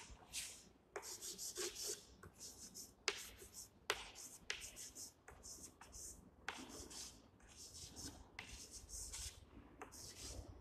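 Chalk writing on a chalkboard: a run of short scratchy strokes, with a couple of sharp taps as the chalk strikes the board about three and four seconds in.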